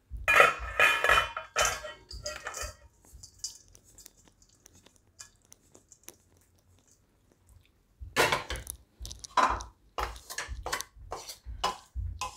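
A pan and spatula scraping and clattering against a stainless steel bowl as a crumbly rice-flour mixture is emptied into it. The sounds come in two spells with a quiet gap of several seconds between them.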